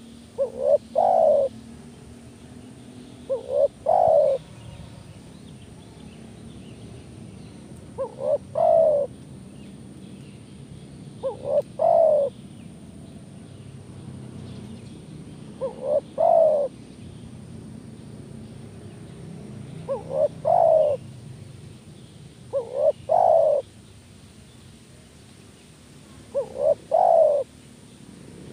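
Spotted dove cooing: a call of two short notes followed by a longer, drawn-out note, repeated eight times at intervals of about three to four seconds.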